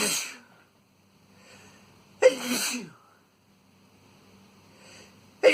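A man's induced sneezes: the tail of one sneeze at the start, then a short breath in and a sharp sneeze about two seconds in, and another sneeze starting right at the end.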